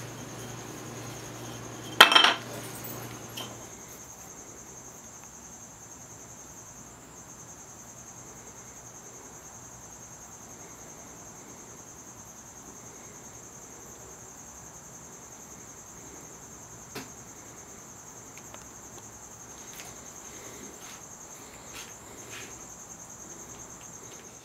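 A sharp clatter about two seconds in, as things are handled on a wooden workbench, with a low hum that stops shortly after. Then quiet room tone with a steady high-pitched whine and a few faint ticks.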